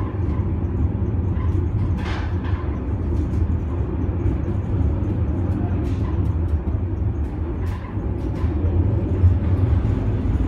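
A train running through a tunnel, heard from inside at its front: a steady low rumble with scattered light clicks and knocks.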